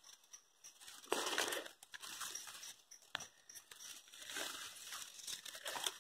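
Irregular rustling and crackling of dry grass and leaves as a freshly caught traíra (wolf fish) thrashes against them and is handled, with a sharp click about three seconds in.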